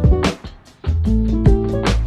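Background music: sustained notes over a steady beat, dropping out briefly about half a second in, then coming back.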